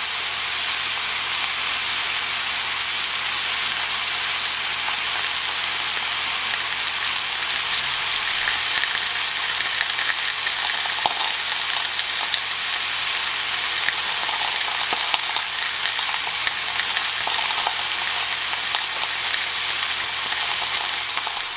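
Marinated skirt steak sizzling steadily in a hot cast-iron grill pan, a constant frying hiss with occasional small crackles.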